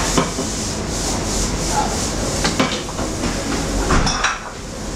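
Restaurant kitchen at the stove: a run of quick, rhythmic scraping strokes of a utensil against a pan about a second in, then sharp clinks and clatter of steel saucepans and utensils, over a steady kitchen hum.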